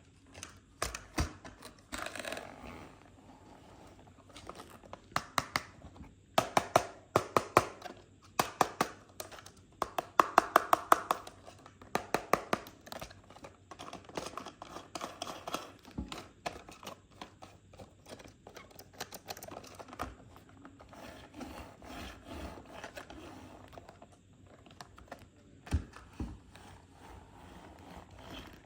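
Toy cars and their packaging being handled and opened by hand: plastic and cardboard crinkling and tearing, with many quick clicks and taps, most dense and loudest from about six to thirteen seconds in.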